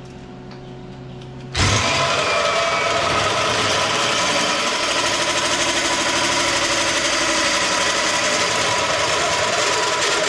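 A power grinder switches on suddenly about a second and a half in and runs loud and steady, then starts to wind down with a falling pitch at the very end.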